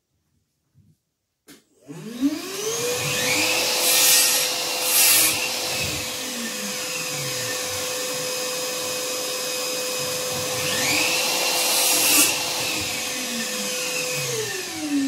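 An electric power tool's motor spins up about two seconds in and runs at a steady high whine with a rush of air for about twelve seconds, with a few brief louder surges, then winds down near the end.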